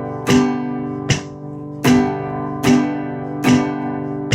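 Acoustic guitar strumming a G chord in a short-short-long pattern (two one-beat strums and a two-beat strum), the chord ringing between strokes.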